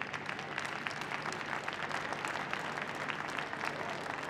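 Audience applauding, a steady clatter of many hands clapping at once.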